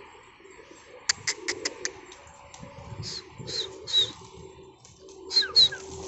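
Domestic pigeons cooing low and softly. A quick run of about five sharp high notes comes a second in, and short high chirps that slide downward come from other birds a few times later on.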